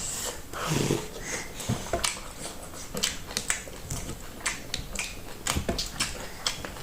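Close-up eating sounds: wet chewing and lip smacking with many sharp, irregular mouth clicks and a short low grunt-like mouth sound about a second in.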